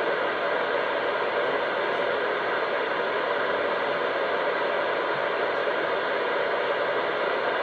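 Steady static hiss from a CB radio receiver, with no voice coming through.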